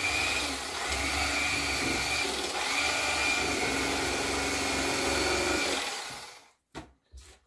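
Electric fillet knife running steadily as it slices a fillet off a yellow bass, then switched off about six seconds in.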